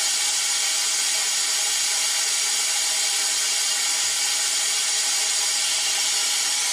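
Compressed-air venturi coolant vacuum-fill tool hissing steadily as it pulls a vacuum on the cooling system, the stage before refilling with coolant.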